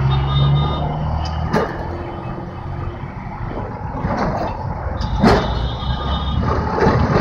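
Running noise of a moving Kolkata tram: a steady low rumble of the car on its rails, mixed with the traffic alongside. Two sharp knocks stand out, about a second and a half in and again about five seconds in.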